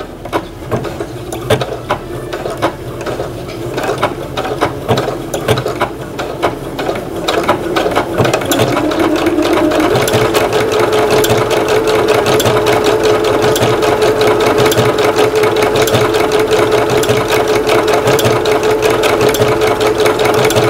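Household electric sewing machine sewing an overlock stitch through fabric with an overlock foot. The needle clatter starts at a slow, uneven pace, speeds up through the first half, and from about halfway runs fast and steady with a constant motor hum.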